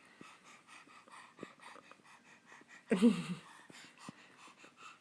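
Upset baby sniffling and breathing in quick short breaths after crying, with one brief whimper about three seconds in.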